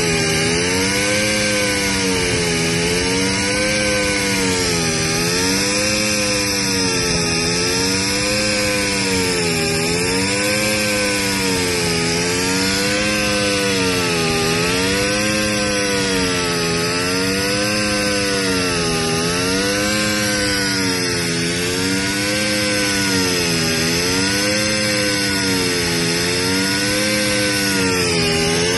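Portable in-situ crankpin grinding machine running on a Yanmar S185L-ST crankshaft, regrinding a crankpin damaged by a bearing failure. Its motor hums with a pitch that rises and falls evenly about every two seconds, over a steady high grinding hiss.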